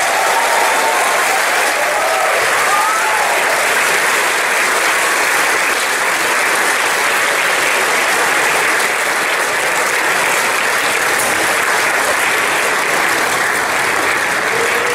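Audience applauding steadily in a theatre hall, with a few voices calling out during the first few seconds.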